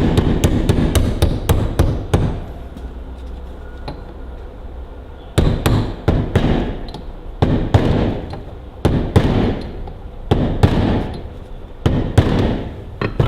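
Hammer blows knocking a greased bearing home into the Ferguson TEA20's PTO shaft housing. A quick run of taps is followed by a short lull, then a series of spaced blows from about five seconds in.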